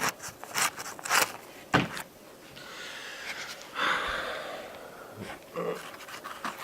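Handling noise from parts of the model plane being moved aside by hand: a few sharp clicks about half a second apart, then a rustling scrape that swells about four seconds in.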